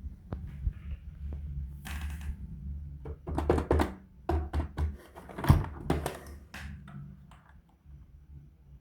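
Handling noise: a run of irregular knocks and taps, busiest and loudest in the middle, over a low steady hum.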